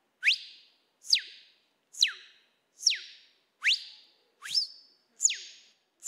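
A man whistling an imitation of the tico-tico-rei (tira-fogo) song: seven sharp, evenly spaced whistled notes, about one a second, each a quick pitch sweep, most of them falling.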